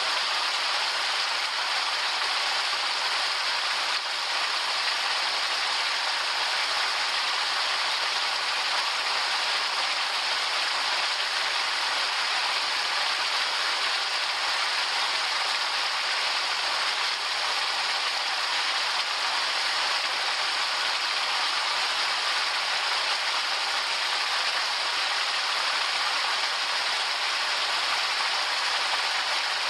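Waterfall: falling water rushing steadily with an even, unbroken hiss.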